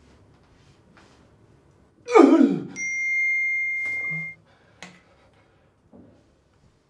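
A quick falling whoosh, then a steady high electronic beep lasting about a second and a half that cuts off abruptly. A few faint clicks follow.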